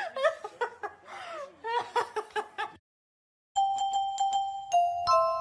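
High-pitched voice sounds like laughter, then a short silence. About three and a half seconds in, a glockenspiel-like chime tune starts: one note struck several times, then a few notes stepping down.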